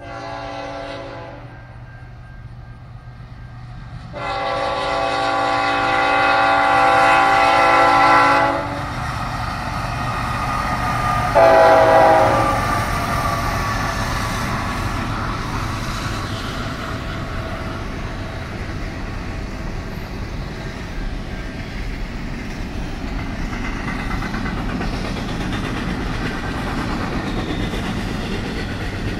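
A CN diesel locomotive's multi-chime air horn sounds three blasts: a short one, a long one of about four seconds, then another short one. After that comes the steady rumble and clatter of a double-stack intermodal train's well cars rolling past.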